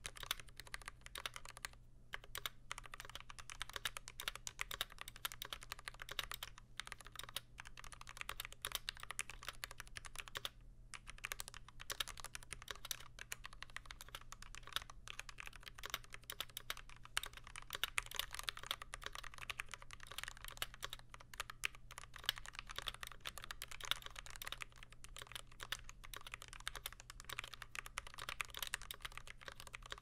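Typing test on an NK87 aluminum-case mechanical keyboard fitted with lubed Gateron Ink Black linear switches, GMK keycaps and stock unlubed plate-mount stabilizers. It is a steady, fast run of keystrokes, with short breaks about two seconds and about ten seconds in.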